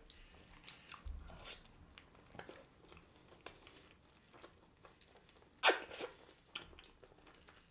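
Close-miked eating sounds: quiet biting and chewing of stewed oxtail eaten off the bone by hand, with soft mouth clicks. A couple of louder wet smacks come about two thirds of the way through.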